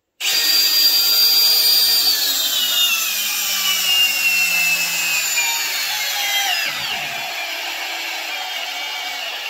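Milwaukee 2904 Gen 4 hammer drill in drill mode on speed one, driving a 12-inch 5/8-inch lag bolt into a pressure-treated 4x4. The motor starts suddenly and its whine sinks steadily in pitch as the lag goes deeper and the load builds. The pitch falls steeply about seven seconds in as the drill nears its maximum torque, then it runs on at a lower pitch until it stops just before the end.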